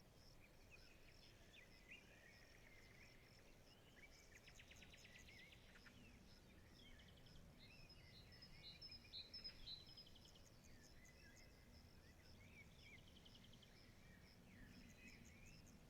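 Faint forest ambience: birds chirping and giving short trills, over a steady high chirring.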